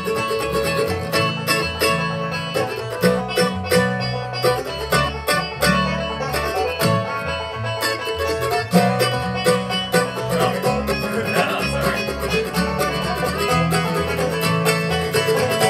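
Bluegrass band playing live: banjo picking over guitar and upright bass.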